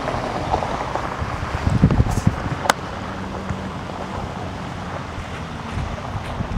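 Wind buffeting the microphone over the low hum of a Mercedes-Benz G-Class off-roader's engine as it crawls over rough ground. The wind gusts hardest about two seconds in, and there is one sharp click just after.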